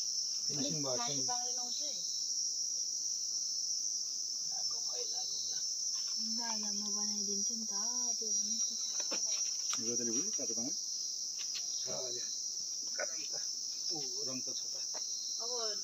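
A steady, high-pitched chorus of insects, unbroken throughout, with people's voices talking quietly now and then underneath.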